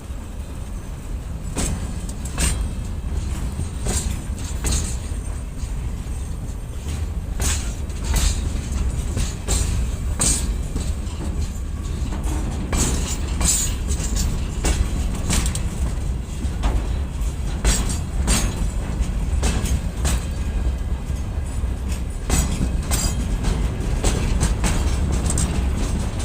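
Train wheels clattering over rail joints: sharp knocks, often in close pairs, recurring every second or so over a steady low rumble of the moving train.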